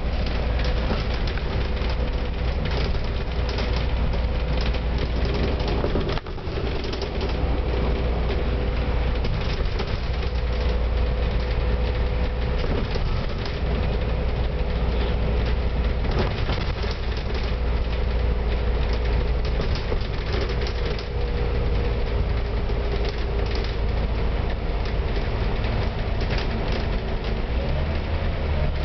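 Scania K310UD double-decker bus cruising at highway speed, heard from on board: a steady low engine drone with a steady whine above it and road noise. There is a brief dip in the sound about six seconds in, and the engine note shifts near the end.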